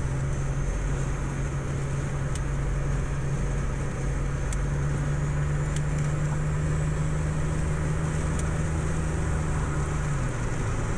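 Turbocharged GM 3800 L36 V6 running at a steady highway cruise, heard from inside the car's cabin over continuous tyre and wind noise. The engine's hum rises slightly in pitch about four and a half seconds in and drops back near the end.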